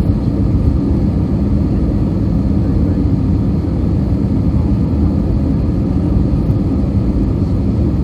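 Steady cabin noise of an Airbus A320-214 in flight: a constant low rumble of engines and airflow, with a faint steady hum.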